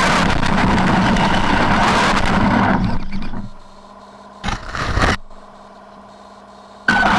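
Traxxas E-Maxx electric RC monster truck driving, its motor and drivetrain running steadily with rough-terrain noise. About halfway through it goes quiet, with one short burst of throttle in the pause, then the running sound comes back suddenly near the end.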